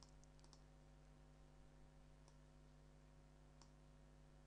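Near silence with a steady faint hum, broken by a few faint computer mouse clicks: a quick cluster near the start, then two more spaced about a second apart.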